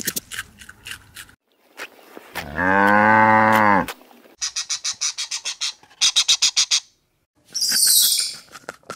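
A cow mooing once, a long, full call of about a second and a half, starting a little over two seconds in. It is followed by two runs of rapid, high-pitched chattering pulses and a short, high, hissing call near the end.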